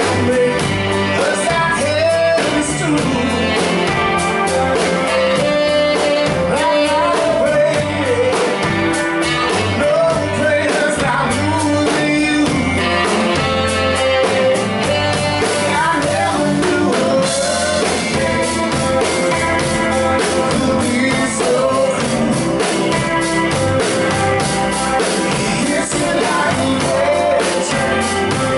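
Live blues-rock band playing: electric guitar, bass guitar and drum kit, with a lead vocal sung into the microphone.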